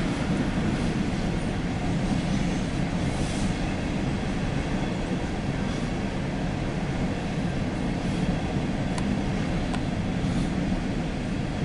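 Empty CSX coal hopper cars rolling past: a steady rumble of freight car wheels on rail, heard from inside a car, with a couple of light clicks about nine seconds in.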